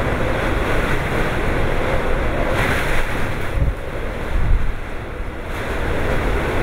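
Typhoon wind and heavy rain: a loud, continuous rush of wind-driven rain with low rumbling wind buffeting on the microphone, and a stronger, hissier gust about three seconds in.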